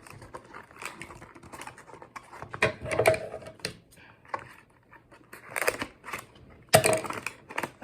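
Scissors clicking and snapping as they work at a thick string on a toy's cardboard box, with packaging rustle between the irregular clicks; the loudest snaps come near the end, as the hard-to-cut string gives way.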